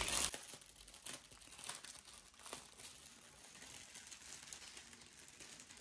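Faint crinkling of plastic packaging being handled, with a few light clicks.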